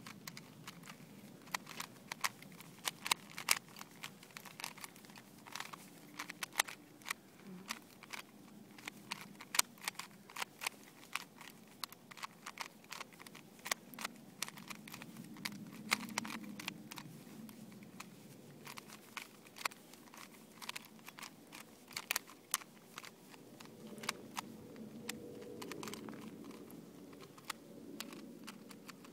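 A standard plastic Rubik's Cube being turned rapidly by hand while it is solved: quick, irregular clicks and clacks of the layers snapping round, in flurries with short pauses between.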